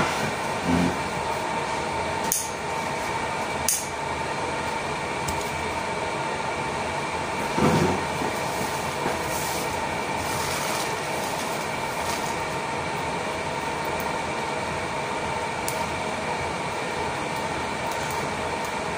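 Steady machine hum with a constant faint whine, with a couple of light clicks early and a soft bump about eight seconds in.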